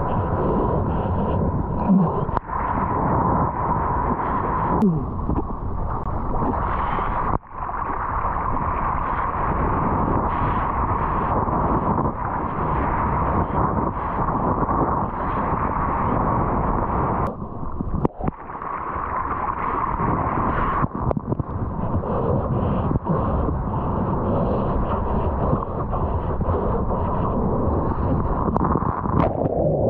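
Rushing water and wind noise picked up by a surfer's mouth-mounted GoPro Hero 8 while riding waves, a steady rush that breaks off abruptly a few times.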